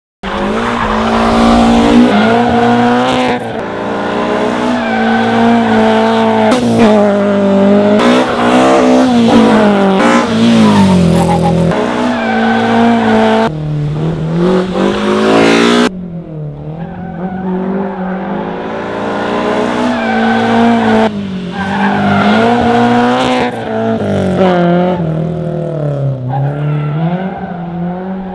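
Mercedes 190E 2.5-16 Evo I race car's naturally aspirated four-cylinder engine revving hard, its pitch climbing and dropping again and again through throttle blips and gear changes, with tyres squealing at times. The sound changes abruptly about halfway through.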